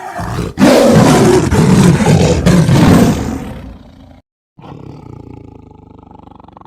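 Tiger roar sound effect: a loud roar of about three seconds that fades and cuts off, followed after a brief gap by a quieter, low, rapidly pulsing growl.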